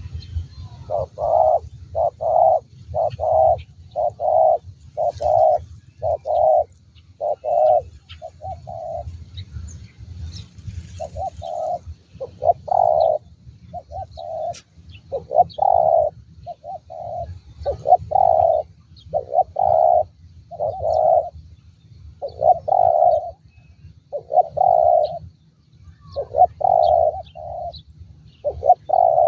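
Male spotted dove cooing: a long series of short coos, roughly one a second, in runs broken by brief pauses, over a steady low rumble.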